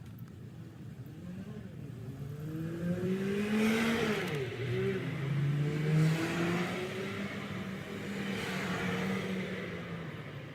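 A car engine running, its pitch rising and falling, loudest about four and six seconds in, with a hiss swelling twice.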